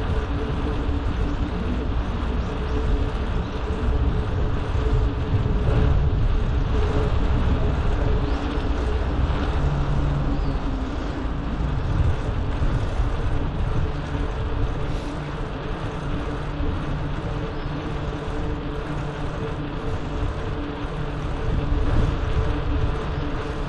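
Steady rumble of wind and road noise while riding a bicycle, with a faint steady hum underneath.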